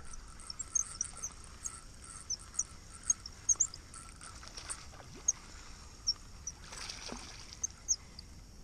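Small birds chirping: short, high, irregular calls scattered over a faint outdoor background, with a brief soft rush of noise about seven seconds in.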